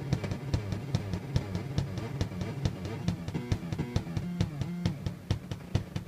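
Homemade noise-box synthesizer output: its LFO-modulated oscillators make a fast, uneven stream of sharp clicks over low buzzing tones that jump between pitches.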